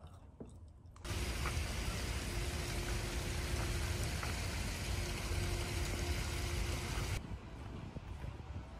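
Steady outdoor background noise with a deep rumble. It starts suddenly about a second in and drops much quieter near the end.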